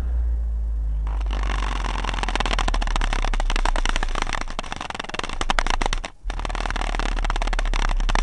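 Car subwoofers playing very deep, loud bass that starts suddenly, cutting out briefly about six seconds in. From about a second in a dense crackling rattle rides on the bass, the car's panels buzzing and the microphone overloading.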